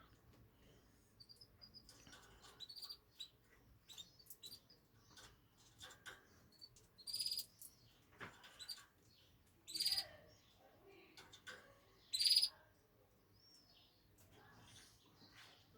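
Birds chirping, with many short high chirps and three louder calls about 7, 10 and 12 seconds in.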